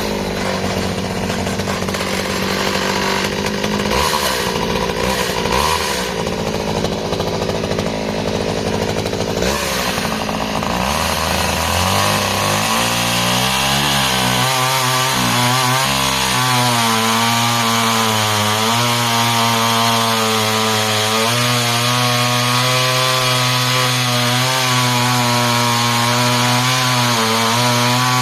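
Stihl 009 vintage top-handle chainsaw's small two-stroke engine running at high revs while cutting dry timber, its pitch wavering with the load. The engine note rises and steadies about eleven seconds in.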